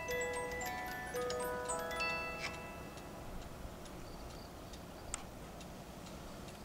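Music box of an Anton Schneider cuckoo clock with a German Regula musical movement, plucking the last notes of its melody and stopping about two and a half seconds in; after that the clock's movement ticks on.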